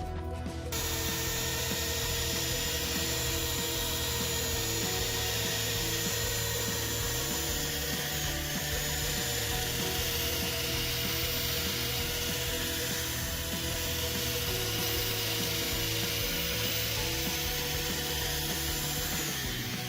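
A wood lathe spinning a blank of cherry burl cast in epoxy resin while a tool works against it, a steady hiss of cutting or rubbing with a steady motor tone under it, starting about a second in. Background music plays underneath.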